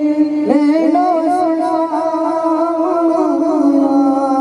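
A man's voice singing a devotional chant into a microphone, holding long, wavering notes with a quick rise in pitch about half a second in.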